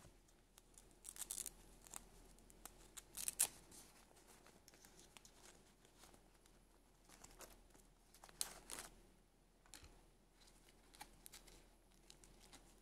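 Fingers handling a fashion doll and her cloth dress: quiet, short scratchy rustles and scrapes every few seconds, the sharpest about three seconds in.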